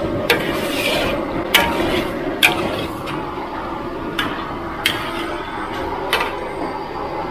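Metal spatula stirring chicken offal and holy basil in a wok, with six sharp clanks against the pan spread through it over a steady rushing noise.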